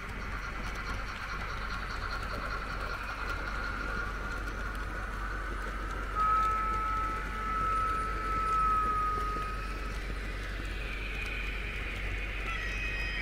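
Märklin H0 model trains running on the layout: a steady whirr of small motors and wheels on track. A little past the middle a steady high tone is held for about three seconds.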